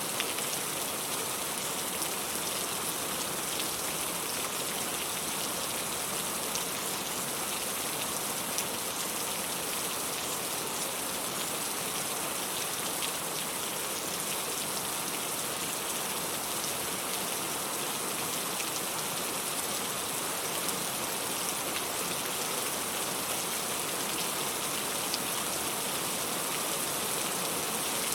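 Steady rain falling, a dense even patter of drops that neither swells nor eases.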